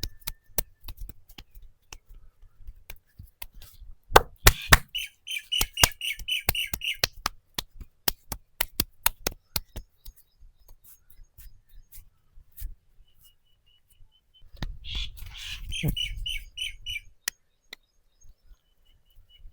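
Massage hand strikes: a run of sharp slaps and knocks, several a second, dense between about four and ten seconds in, with scattered single cracks. Twice, a small bird chirps in a rapid series of about six high chirps a second, each series lasting about two seconds.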